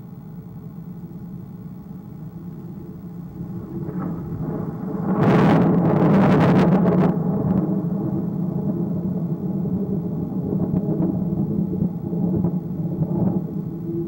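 Thunder: it builds about four seconds in, breaks loudly with a crackle about five seconds in, then rolls on as a low rumble.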